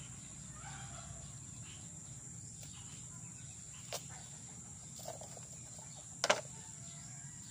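A knife working on areca (betel) nuts over an enamel basin gives three short sharp clicks about four, five and six seconds in, the last the loudest. A steady high insect trill runs underneath.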